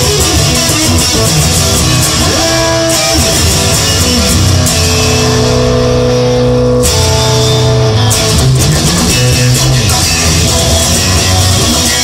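Guitar-led rock song with bass, playing continuously; a few notes are held in the middle before the texture changes abruptly about two-thirds of the way through.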